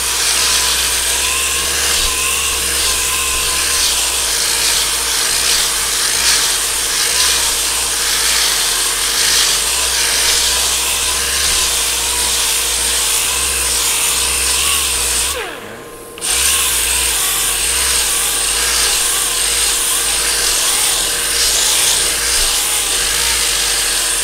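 Power sander running steadily as it sands body filler on a car panel. About 15 seconds in it stops briefly, its pitch falling as it winds down, then starts up again.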